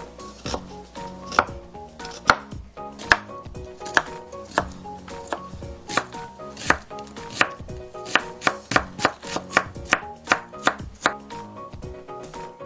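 Chef's knife chopping an onion on a wooden cutting board: sharp knocks of the blade on the board about a second apart, then a quicker run of about three a second that stops near the end.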